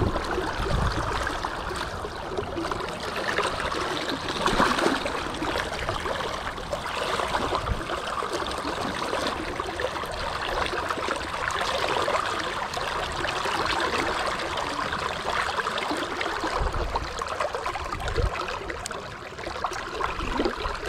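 River current rushing and gurgling steadily around a wading angler's legs, with a few short low thumps on the microphone.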